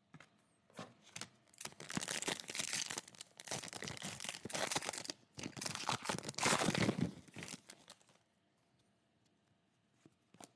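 Foil wrapper of a trading card pack being torn open and crinkled by hand, a run of loud rustling tearing lasting about six seconds with a brief pause in the middle.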